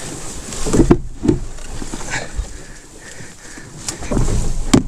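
Portaging under an overturned canoe: a man's grunts and hard breathing with the strain, mixed with irregular knocks, scrapes and rustling as the hull bumps and brushes through the undergrowth. The bumps are busiest about a second in and again near the end.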